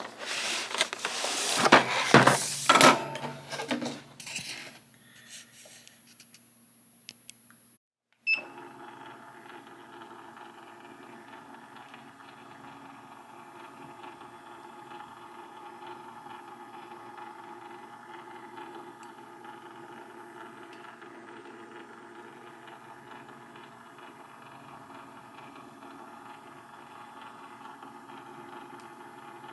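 Cardboard and plastic packaging being handled and pulled apart for the first few seconds, loud at first, then fading. After a sudden cut about eight seconds in, a faint, steady background of held tones.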